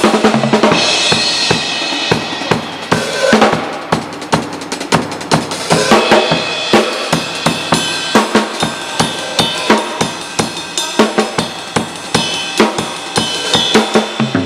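Acoustic drum kit being played: bass drum, snare and toms struck in a fast, busy pattern of several hits a second, with cymbal crashes ringing over them.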